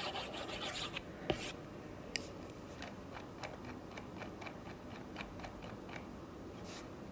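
Pen drawing on a writing surface: faint, irregular light ticks and a few short scratching strokes, busiest in the first second and a half.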